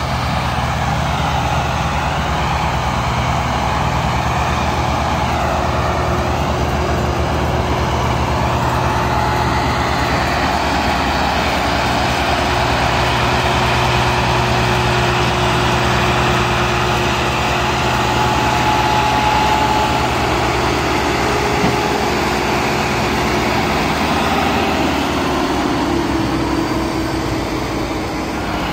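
Massey Ferguson 385 diesel tractor engines working hard under load as they haul a heavily loaded sugarcane trolley: a loud, steady heavy engine drone.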